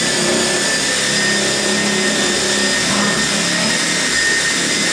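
Cordless impact wrench running without a break, driving a 1/4-inch lag screw through a 2x6 board and the sheetrock into a ceiling joist, with a steady whine.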